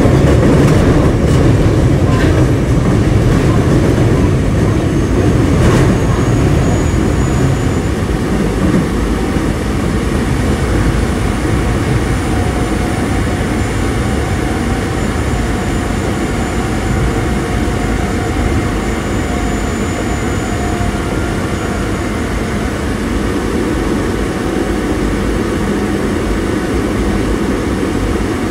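Osaka Metro 22 series subway train running between stations, heard from inside the car: steady wheel and motor noise with a faint whine. A few sharp clicks of the wheels over rail joints come in the first six seconds.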